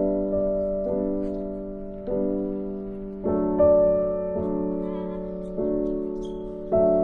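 Background music: slow piano chords, a new chord struck about every second and left to fade.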